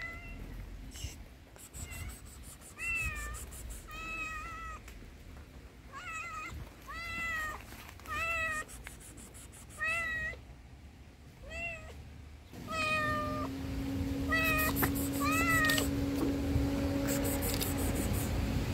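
A tuxedo stray cat meows over and over, begging for food: a string of short meows that rise and fall in pitch, about a second apart. About two-thirds of the way through, a steady low hum sets in, and near the end the foil food pouch crinkles as it is squeezed.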